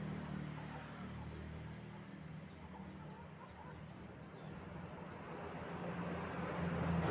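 A steady low mechanical hum, stronger near the start and again near the end, with a few faint, short, high calls in the middle.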